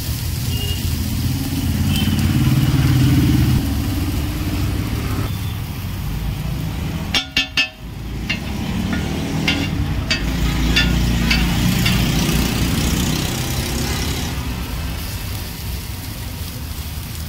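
Road traffic passing, with engine rumble swelling and fading twice. About seven seconds in, three quick horn toots. A steel spatula clicks and scrapes on a flat iron griddle as potato masala is stirred and chopped, with a few sharp taps a couple of seconds after the toots.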